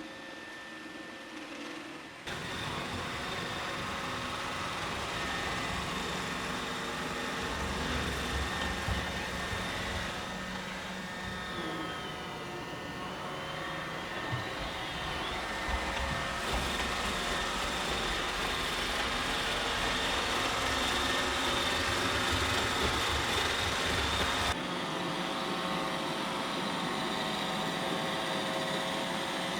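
Roomba 800-series robot vacuum switching on about two seconds in, then running steadily: a rushing noise with a steady motor whine. The low rumble drops away about five seconds before the end.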